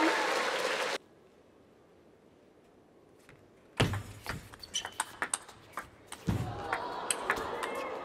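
Crowd cheering and clapping that cuts off about a second in. After a short quiet, a table tennis rally: quick, sharp clicks of the ball off the bats and table, with two heavier thuds among them.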